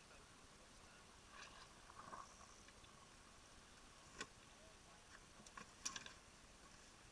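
Near silence, with a few faint short clicks about four and six seconds in.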